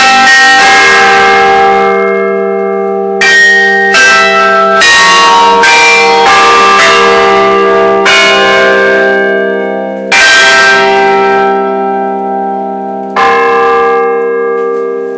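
Church bells of several pitches struck in an irregular pattern, a fresh stroke every one to three seconds, each ringing on so the tones overlap in a long sustained hum over a deep steady bell tone. The ringing fades after the last stroke, near the end.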